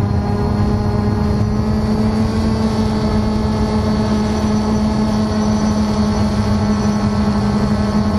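Potensic D85 quadcopter's motors and propellers buzzing steadily in flight, picked up by the camera riding on the drone: a constant hum at one steady pitch.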